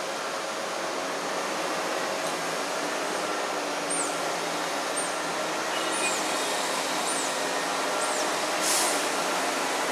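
A steady, loud rushing noise, the kind of loud machine or traffic noise that disturbed the otters. From about four seconds in, five short, high chirps fall in pitch, roughly one a second.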